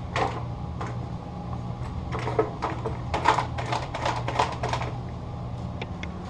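Quick light clicks and taps of a paint roller and its frame knocking against a paint tray, bunched in the middle of the stretch, over a steady low hum.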